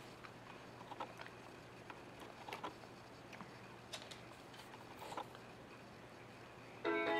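Quiet room with faint, scattered taps and clicks. Near the end a baby's electronic musical activity toy suddenly starts playing a tune.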